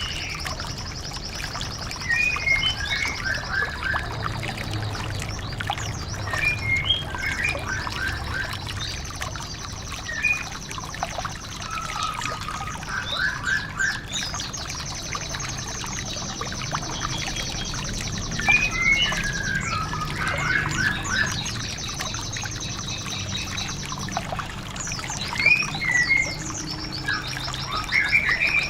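White-eye (Zosterops) birdsong: long, high, rapid trills lasting several seconds, broken by short chirping phrases every few seconds, over a steady trickle of water.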